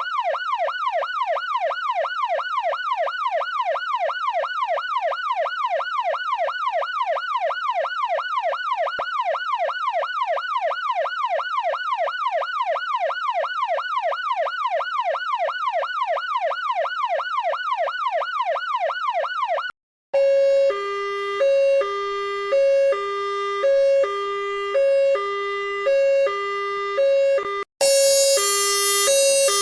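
A sequence of emergency vehicle sirens. It opens with a fast yelp, a rising wail that repeats about three times a second. About twenty seconds in it cuts to a two-tone hi-lo siren, switching between two notes about once a second, and near the end to a brighter, shriller two-tone siren.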